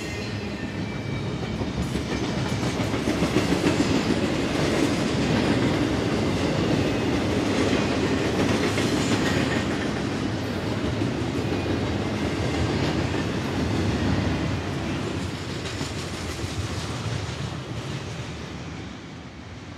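Double-stack intermodal freight train of loaded well cars rolling past, with a steady rumble and wheels clacking over the rail joints. The sound fades near the end as the last cars pass.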